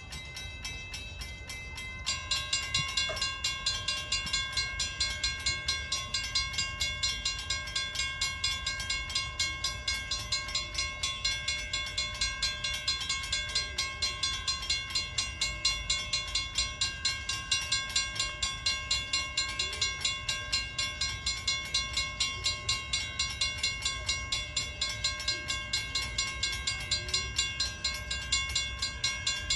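A railroad bell ringing steadily with even strikes, a few a second, that grow louder about two seconds in, over a low rumble.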